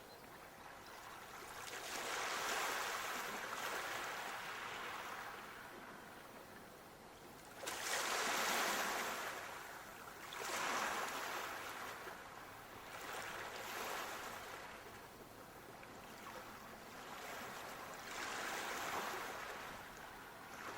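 Waves washing in, a rushing hiss that swells and falls away every few seconds, the strongest surge coming sharply about eight seconds in.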